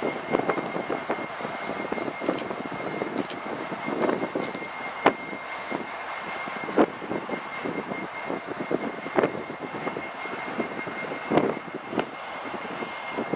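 Union Pacific diesel locomotive rolling slowly past with its engine running, and scattered sharp clanks and knocks from the wheels and running gear. A thin steady high whine runs over it.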